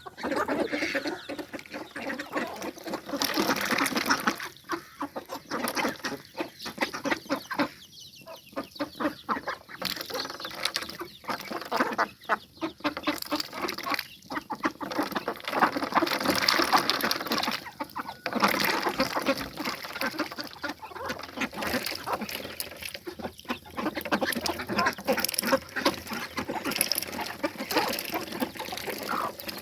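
Farmyard poultry calling and clucking continuously, many birds at once.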